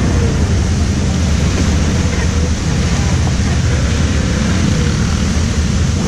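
ATV (quad bike) engine running steadily while riding, heard as an even low rumble with a hiss over it.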